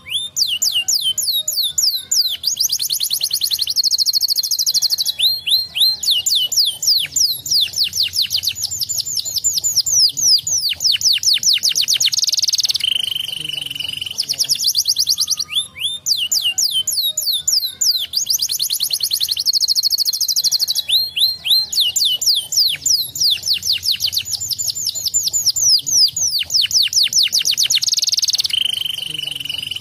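Domestic canary singing a long, unbroken high-pitched song of very fast trills and rolls, with a few short held buzzy phrases between. The same string of phrases comes round again about halfway through.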